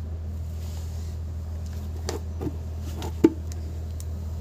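A few light knocks and clicks from handling an electric hair-straightening brush while combing it through the hair, the sharpest one just past three seconds, over a steady low hum.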